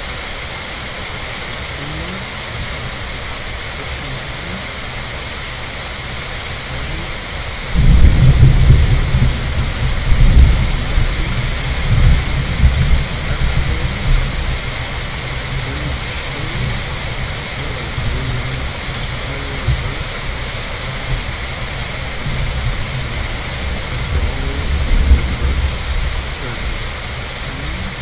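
Steady rain falling, then a sudden loud clap of thunder about eight seconds in that rolls on as a long low rumble, easing off and swelling again near the end.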